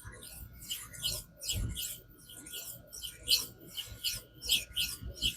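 Steel knife blade, 154CM, stroked back and forth across a wet whetstone: a steady rhythm of short scratchy strokes, about two to three a second.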